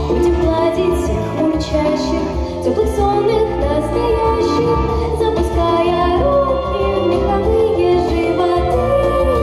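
A young girl singing a pop song into a microphone over a backing track with a steady bass beat.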